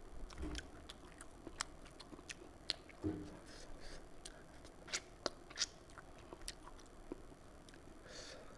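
Close-miked eating sounds: a person chewing and biting food, with sharp wet mouth clicks and smacks scattered irregularly throughout.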